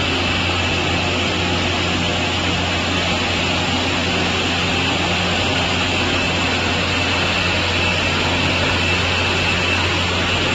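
Multi rip saw running: a loud, steady machine drone with a low hum and a high whine.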